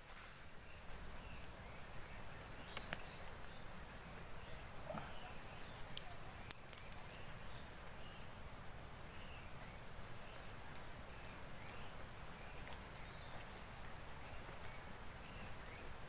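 Outdoor ambience of a steady, high-pitched insect drone with faint scattered chirps. A few sharp knocks stand out about six to seven seconds in.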